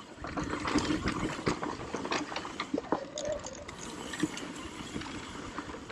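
Mountain bike riding down a loose dirt trail: tyres crunching over the dirt, with frequent clicks and rattles from the bike.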